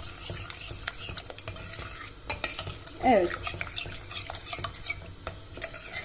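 A spoon stirring grape molasses and starch in a steel pot, with irregular clicks and scrapes of the spoon against the pot as the mixture is worked to thicken it.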